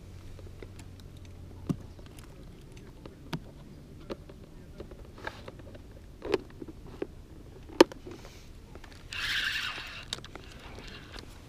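Fishing gear being handled by hand: scattered small clicks and knocks, one sharp click about eight seconds in, then a rustling hiss lasting about a second near the end.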